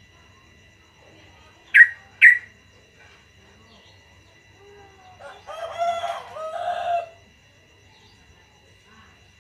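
Two sharp, very short bird call notes about half a second apart, then a few seconds later a rooster crowing in two drawn-out parts.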